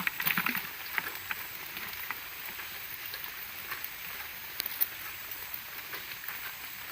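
Steady hiss of running water and light rain, with a few faint clicks and taps from the prawns being handled as they are counted.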